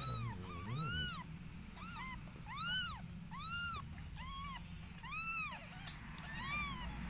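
Newborn kittens mewing: a string of short, high-pitched squeaks that rise and fall, about one or two a second, some close together as if from more than one kitten.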